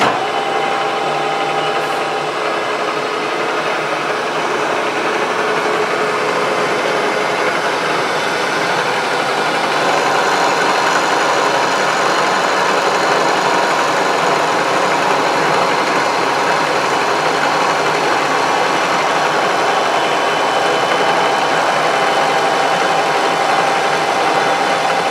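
A shop machine tool running steadily, a constant mechanical whir and hiss with a few held whining tones.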